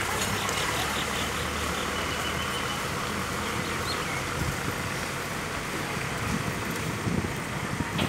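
Heavy diesel engine idling with a steady low hum, turning rougher about halfway through.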